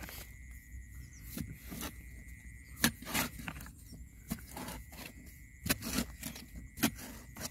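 A hand digging tool striking and scraping into hard, dry, cracked mud: about nine irregular chops, the loudest a little under three seconds in.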